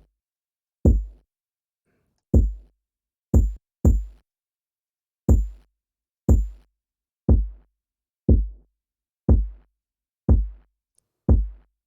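Sampled electronic kick drum, roughened with bit reduction, compression, overdrive and EQ, played on its own: deep thumps, each with a short high click on top. The hits come unevenly at first, then about one a second.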